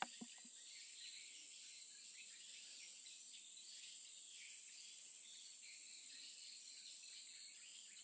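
Faint, steady chorus of insects chirring, with a continuous high, even drone.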